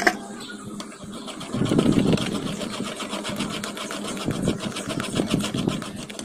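Metal spoon stirring and scraping blended falsa pulp around a stainless-steel mesh strainer, a fast rhythmic scraping that pushes the juice through the mesh. It gets louder about a second and a half in.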